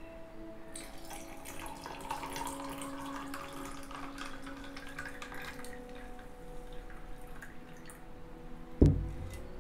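Malta orange juice pouring in a stream into a glass over ice, splashing as it fills. A single dull thump near the end.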